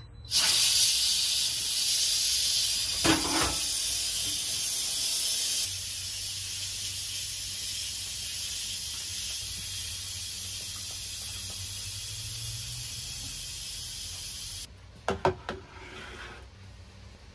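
Instant Pot pressure cooker venting steam through its release valve after cooking: a loud, steady hiss that starts suddenly, eases slightly partway through and cuts off abruptly. A few light knocks follow as bowls are set down on a table.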